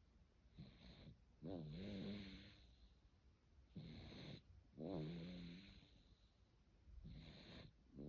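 Quiet snoring: a short breath followed by a longer, buzzing, pitched snore, repeating about every three seconds.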